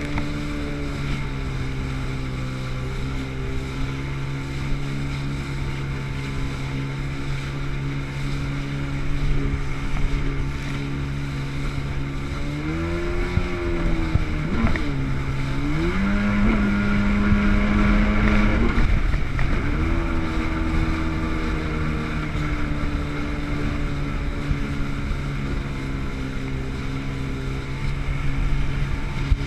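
Sea-Doo jet ski engine running at a steady cruise. About halfway through the rider works the throttle: the note rises, dips sharply, climbs and holds higher for a few seconds, then falls back to the steady cruising pitch.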